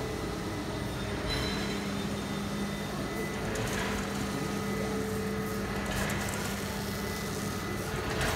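Steady hum of running industrial machinery, with a few held tones over it; a low tone comes in about a second and a half in and drops out about a second before the end.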